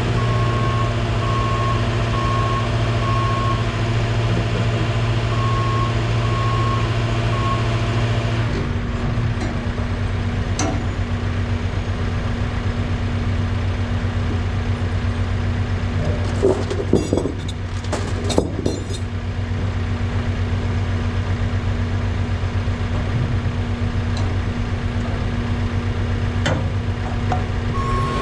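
Heavy diesel equipment engine running steadily while a backup alarm beeps; the beeping stops about a third of the way in and starts again near the end. A few sharp metallic clanks come a little past the middle.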